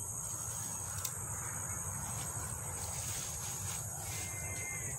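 Steady, high-pitched chorus of insects over a low rumble, with one sharp click about a second in.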